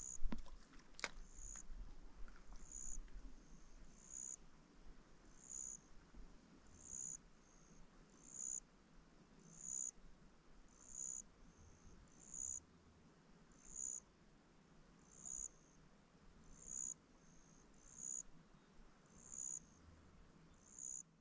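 Faint cricket chirping in a steady rhythm: a short high chirp about every three-quarters of a second, every other one louder. A single sharp click about a second in.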